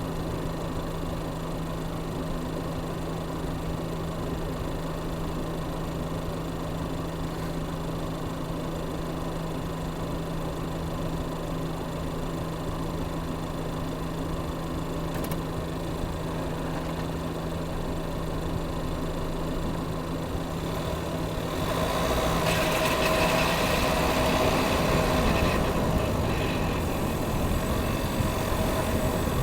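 2019 Chevy Equinox running with a steady low hum. About three quarters of the way through it grows louder, with a higher whine over the hum for several seconds.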